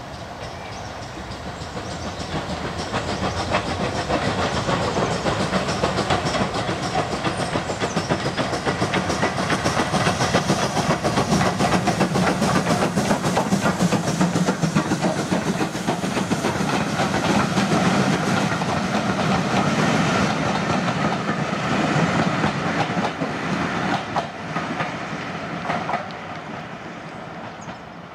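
Steam locomotive hauling a train of passenger coaches past at speed. The sound builds as it approaches and is loudest midway. It dies away near the end as the last coaches clatter over the rail joints.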